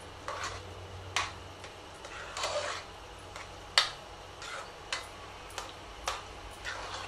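A metal spoon stirring thick mashed rice and milk in an aluminium pressure-cooker pot, knocking and scraping against the pot's side in about a dozen short, irregular clinks, one sharper knock a little before the middle.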